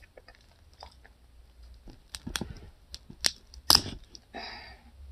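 Biting and chewing boiled corn on the cob: a few sharp wet clicks and crunches, the loudest about three and three-quarter seconds in, followed by a short rustling chew.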